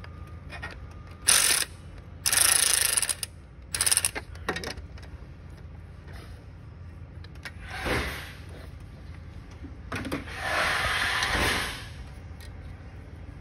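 Socket ratchet clicking in short bursts, five in all, the longest near the end, as it turns the exhaust manifold bolts on a turbocharged 2013 Chevy Cruze engine.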